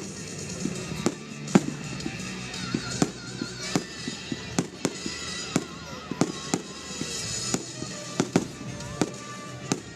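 Fireworks display going off: a rapid, irregular string of sharp bangs, several every second, some much louder than others, over a continuous background of music.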